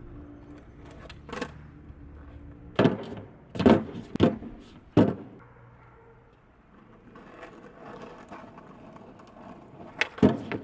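Skateboard wheels rolling over hard ground, broken by a run of four sharp board clacks about three to five seconds in, from the tail pop and landing of an ollie onto a manual pad; after more rolling, another quick cluster of clacks comes near the end.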